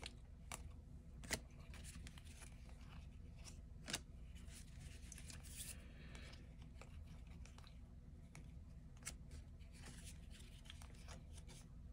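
Faint rustling and light clicks of paper trading cards being handled and flipped through, with two sharper taps, about a second and four seconds in.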